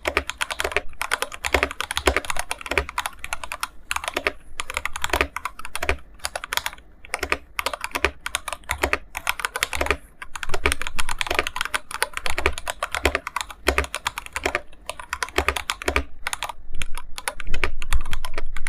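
Typing on an IQUNIX F97 mechanical keyboard with TTC Gold Pink linear switches: fast runs of keystrokes with short pauses, the loudest run near the end.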